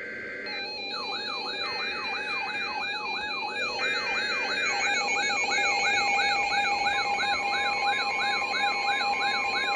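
Weather radio alert: three short bursts of SAME header data tones, overlapped by a warbling alarm that sweeps up and down about three times a second, with steady tones beneath. This is the signal that a new warning is about to be broadcast.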